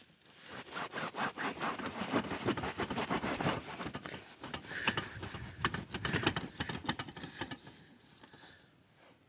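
Irregular scraping and rustling close to the microphone, with many small clicks, dying away about a second and a half before the end.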